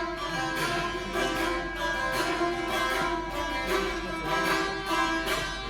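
Saz, the long-necked plucked lute, being played: a steady run of plucked notes over strings left ringing.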